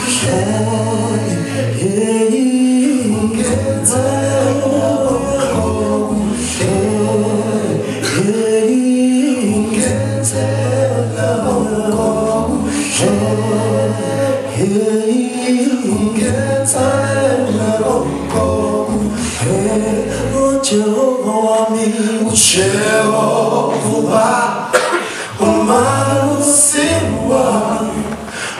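Male a cappella group of six singing in harmony through microphones, with a low bass part held under the higher voices.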